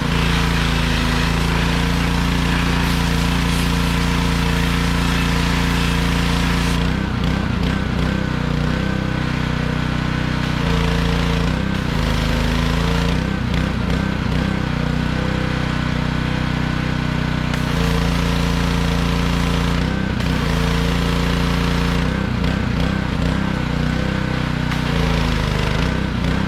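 Small petrol engine of a pressure washer running steadily while the washer's spray hisses through a sandblasting attachment; the hiss comes and goes several times as the spray is worked.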